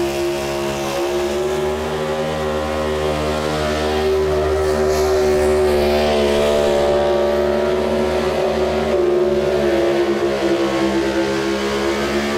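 Modified Ford pulling truck's engine at full throttle dragging a weight-transfer sled. It holds a steady, high engine note that sags slightly about nine seconds in.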